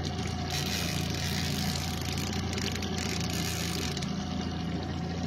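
Boat engine idling with a steady low hum, with a steady hiss over it.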